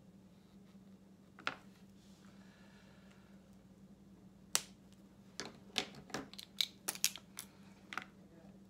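Plastic markers clicking as they are capped, set down on a wooden table and picked up. There is a single click, then a sharp one near the middle, then a quick run of clicks in the second half, over a steady low hum.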